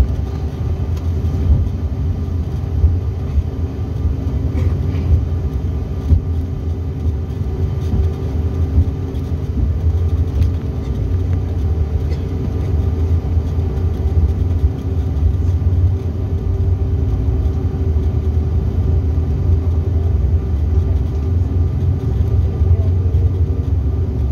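Steady cabin rumble of a Bombardier CRJ900 jet rolling along the ground, its rear-mounted turbofans running evenly with a faint hum over the low rumble.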